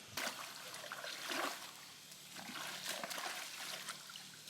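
Faint, irregular splashing and sloshing of muddy water.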